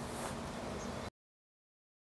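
Steady background hiss with a low hum, which cuts off abruptly to dead silence about a second in.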